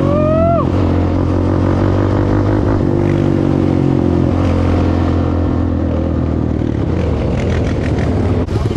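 Yamaha Banshee 350 quad's two-stroke twin, breathing through a DMC 916 aftermarket exhaust, running steadily. There is one quick throttle blip right at the start.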